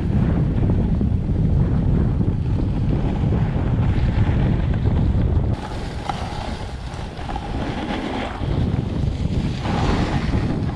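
Wind buffeting the camera microphone while skiing downhill, a loud, even rumble, with skis hissing over packed snow. The rumble drops and thins about halfway through.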